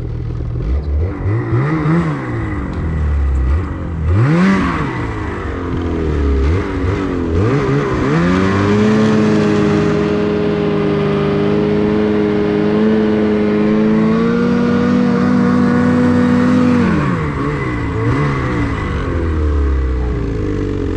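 2018 Ski-Doo 850 two-stroke snowmobile engine revved in the 'chainsaw technique', run hard with the track spinning to throw snow onto the cooling surfaces of an overheating sled. It starts with several quick rev blips, then climbs about eight seconds in and is held high and steady for several seconds before dropping back.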